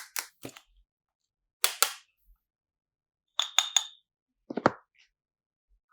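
Sharp, wet pops and clicks from slime and cloud clay being pressed and pulled by hand, in small bursts: a few at the start, two about 1.7 seconds in, three quick ones around 3.5 seconds, and a couple more near 4.6 seconds.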